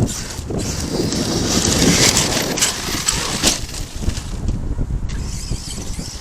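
Arrma Kraton 8S RC truck driving over rough, rocky ground: its brushless motor gives a high whine that rises and falls with the throttle, over gravel crunching under the tyres and a few sharp knocks as it hits rocks.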